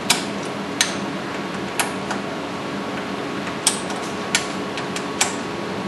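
Sharp metal clicks, about six at irregular intervals, from a hand tool tightening the mounting bolts of a wall-mounted CT-simulator laser housing.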